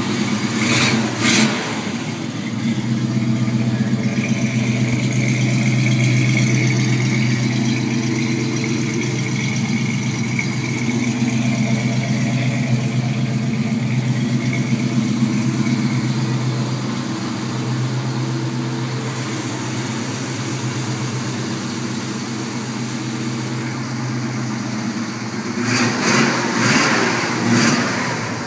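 Chevrolet Camaro SS 350 small-block V8 idling with a steady low rumble. It is blipped briefly about a second in and revved a few times near the end.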